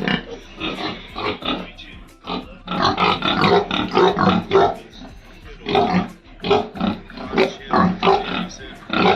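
Farm pigs grunting, a quick run of short calls with brief pauses.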